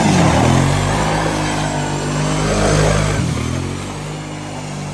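Kawasaki Prairie 650 ATV's V-twin engine revving as the quad spins in tight turns on wet pavement. The revs rise and fall twice, and the engine settles lower in the last second or so.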